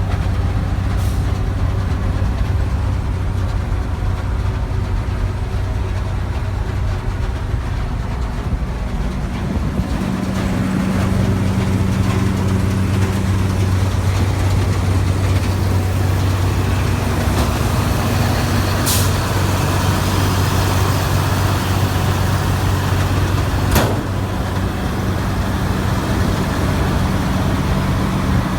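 New Holland TX68 combine harvester's Iveco 9.6-litre six-cylinder turbo diesel running steadily at idle. It grows louder and fuller about ten seconds in, with a few short sharp clicks or hisses over it.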